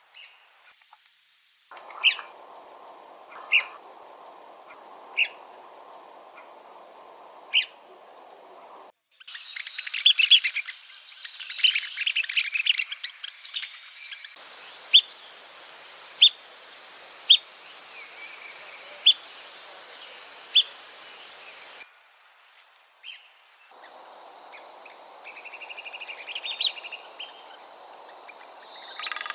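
Red-cockaded woodpeckers calling: sharp, high, squeaky single notes spaced a second or two apart, with a burst of rapid squeaky chattering in the middle and more chatter near the end, over a faint steady hiss.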